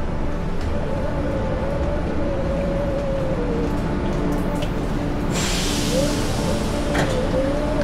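Steady low rumble with a faint wavering whine; about five seconds in, a hiss of rain comes in for a couple of seconds as the rider moves out into the open.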